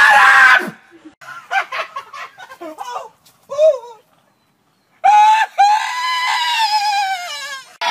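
Short shouted voices in the first second, then a man's long drawn-out scream of pain starting about five seconds in, held for nearly three seconds and falling in pitch at the end. He has stepped barefoot into a patch of stickers (burrs).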